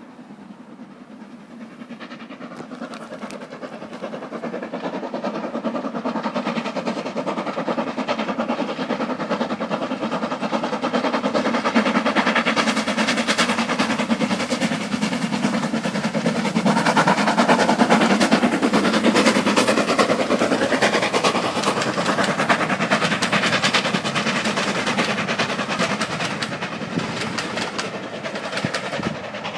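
Steam-hauled passenger train running past on the West Highland line, with the rapid clickety-clack of carriage wheels over the rail joints. It swells as the train approaches, is loudest about two-thirds of the way in, then slowly fades as it moves away.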